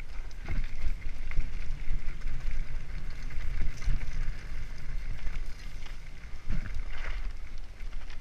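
A mountain bike rolling fast down a rough dirt singletrack: steady rumble of wind on the camera microphone and tyres on the trail, with sharper knocks and rattles as the bike goes over bumps.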